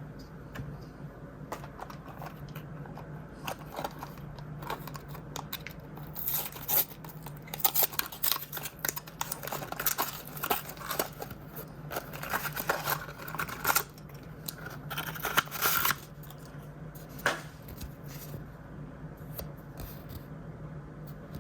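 Mystery toy blind-bag packaging being opened: crinkling, tearing and sharp clicks, busiest in the middle, over a low steady hum.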